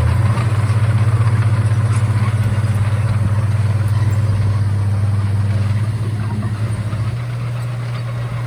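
Komatsu D31A bulldozer's diesel engine running steadily with a deep, even hum, easing off slightly about seven seconds in.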